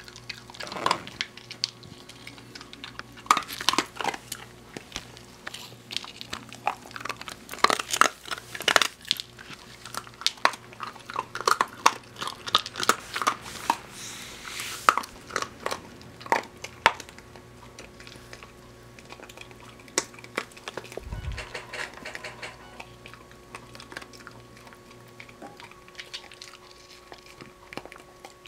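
Dachshund biting and chewing crumbly dry dog treats off the floor, with sharp, irregular crunches. The crunching comes thick and fast in the first half and grows sparser later on.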